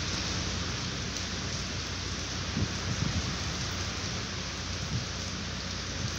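Typhoon rain falling steadily, an even hiss, with a few brief louder taps about halfway through.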